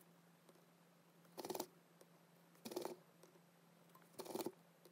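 Solder flux sizzling on a through-hole joint under the hot soldering iron: three short crackling bursts about a second and a half apart. A faint steady hum sits underneath.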